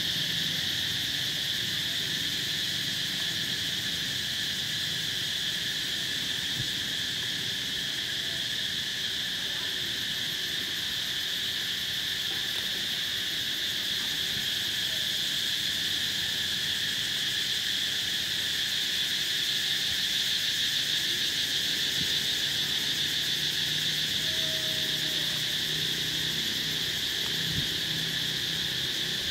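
Insects calling in chorus: a steady, high-pitched drone that never breaks.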